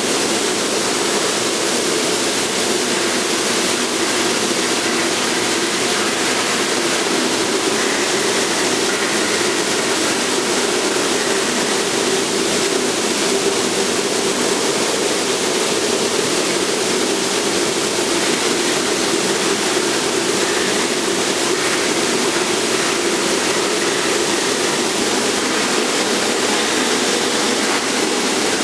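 Steady, even rushing noise with a stronger low band and no strikes or rhythm, like air flow or machinery running continuously.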